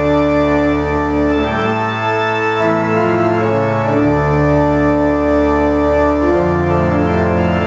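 Pipe organ playing slow, held chords over a low bass line, the chord changing every second or two.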